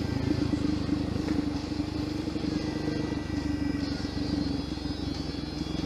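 Dirt motorcycle engine running at a fairly steady speed while riding on trails.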